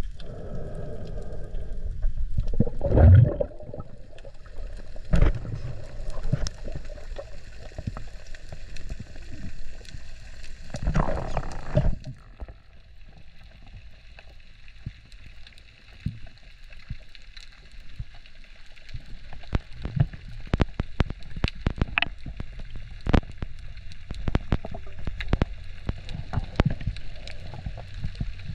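Underwater sound picked up by a submerged camera: muffled water noise with two loud surges about three and eleven seconds in, then many scattered sharp clicks and knocks as the diver moves along a rope.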